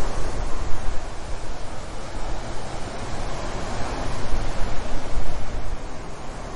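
Strong wind and surf at the shore: a dense, steady noise heaviest in the low rumble, rising and falling in gusts, with wind buffeting the microphone.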